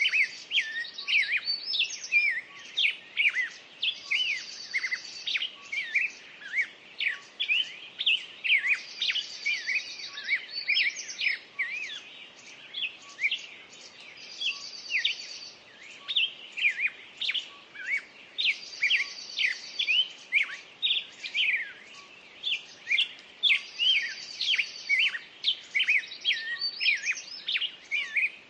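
Songbirds chirping and singing, many short sweeping notes, with a higher rapid trill recurring about every five seconds.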